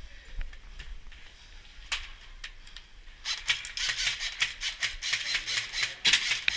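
Airsoft gunfire in a close-quarters room: a rapid, irregular run of sharp high clicks and snaps that starts about three seconds in and keeps going, loudest near the end, after a single click a couple of seconds earlier.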